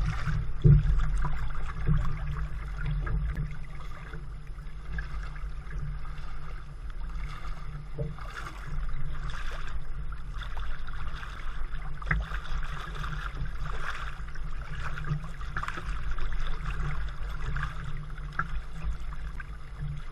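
Water splashing and lapping close to the microphone as a kayak and a mute swan move through choppy water, with irregular louder splashes over a steady low rumble.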